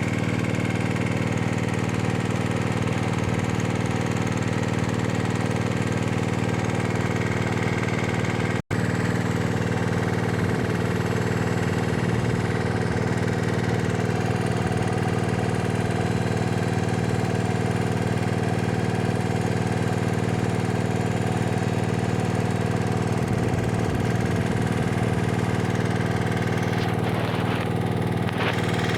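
Electric heat gun running steadily, blowing hot air to shrink heat-shrink sleeves onto the crimped cores of a 300 sq mm power cable. The sound cuts out for an instant about nine seconds in.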